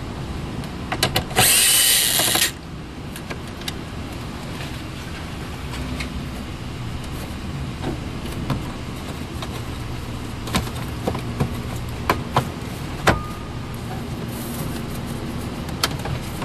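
A power driver briefly runs a bolt out, loudest about a second and a half in, followed by scattered clicks and knocks of tools and interior trim being handled.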